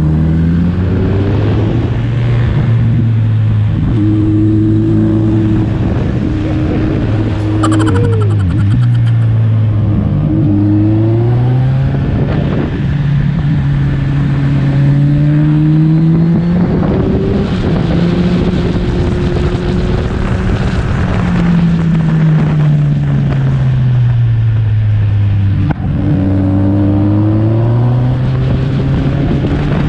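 Kawasaki Ninja 1000's inline-four engine heard from on board, pulling uphill. Its pitch climbs as the throttle opens and drops back as it is rolled off for the bends, again and again, over a steady rush of wind.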